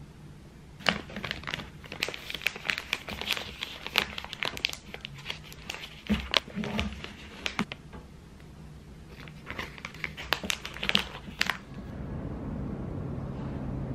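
Clear plastic cookie bag crinkling and crackling as it is handled and sealed around a cookie, in two spells of rustling. Near the end the crinkling gives way to a steady low hum.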